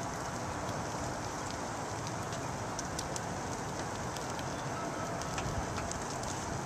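Chicken breasts and tenders sizzling on aluminium foil over a charcoal grill: a steady hiss with scattered small pops and ticks.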